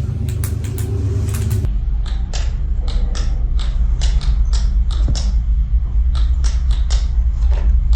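A string of sharp clicks and taps at an irregular pace, roughly two a second, over a steady low hum.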